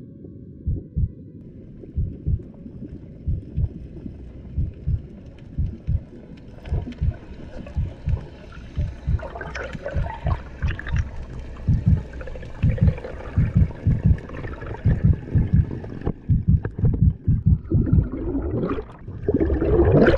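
Slow heartbeat thumping steadily in low lub-dub pairs, about one beat a second. Underwater bubbling builds under it from about halfway, and a rush of water near the end as the diver breaks the surface.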